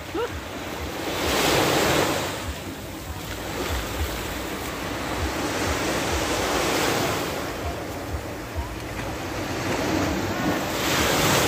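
Small waves breaking and washing up a sandy shore, the wash swelling three times, with wind rumbling on the microphone.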